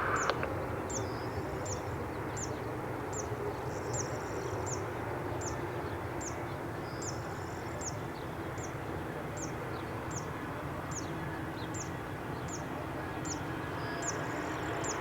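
A bird calls over and over with a short, high chirp that falls in pitch, about once every three-quarters of a second, over a steady low rumble of airport background noise.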